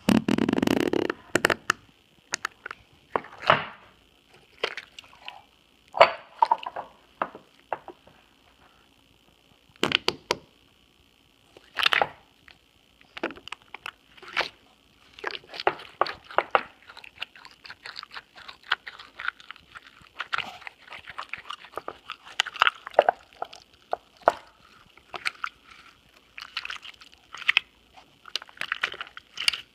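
Slime being squeezed and pressed by hand, making irregular wet squishes and pops, some fart-like, with a longer low one at the start. A steady high-pitched tone from the poor microphone runs underneath.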